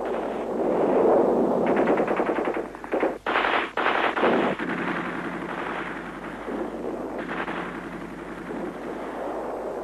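Battle sound of rapid bursts of automatic machine-gun fire, with a sharper, louder stretch about three to four seconds in.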